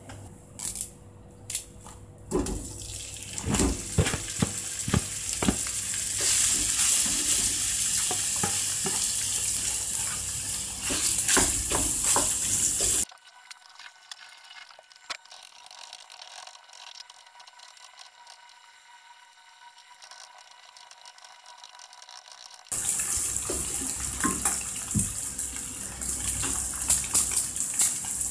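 Ground pork sizzling in hot oil in a nonstick frying pan, with a wooden spatula knocking and scraping as it is stir-fried. The sizzle builds over the first few seconds, drops off abruptly about halfway through to a much quieter stretch, then comes back loud near the end.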